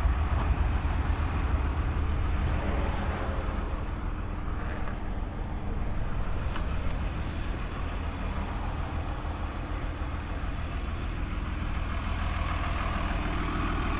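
A motor vehicle engine idling steadily, a low even rumble, a little quieter in the middle.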